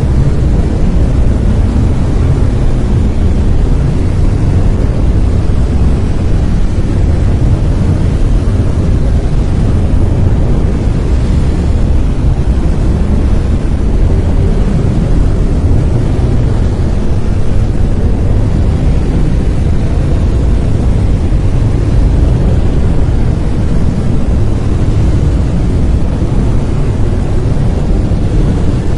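Brown noise: a steady, deep rushing hiss with most of its weight in the bass and little treble, unchanging throughout.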